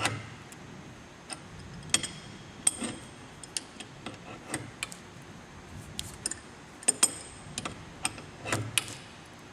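Scattered sharp metallic clicks and clinks, one or two a second, from hand tools tightening the nut on the vent window's pivot spring stud.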